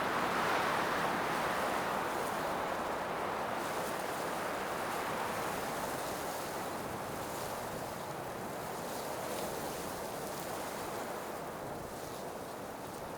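Blizzard wind blowing in a steady rush that swells in the first couple of seconds, then slowly eases off.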